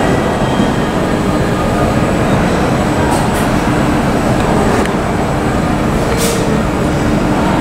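Steady loud rumble of jet aircraft on the apron with a thin high whine running through it, and a few short hisses about three and six seconds in.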